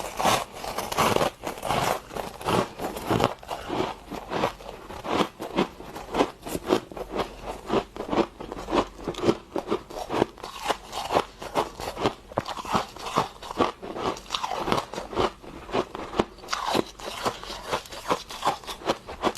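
Freezer frost being bitten and chewed close to the microphone: a steady run of sharp crunches, several each second.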